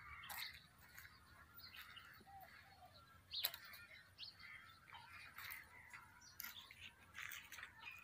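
Near silence: faint outdoor ambience with scattered small clicks and a few faint chirps, and one sharper click about three and a half seconds in.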